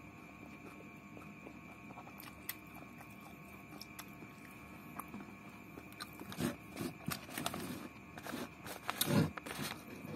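A person eating by hand close to the microphone: irregular wet chewing, biting and small crunches begin about six seconds in. Before that there is only a faint steady hum.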